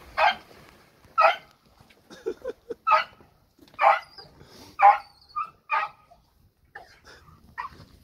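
Beagle barking: about six sharp, high-pitched barks roughly a second apart, with quieter short yelps in between.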